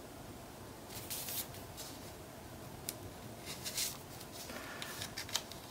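Faint paper rustling and sliding as hands press and smooth patterned paper onto a card album page. It comes in a few short brushes, growing busier near the end.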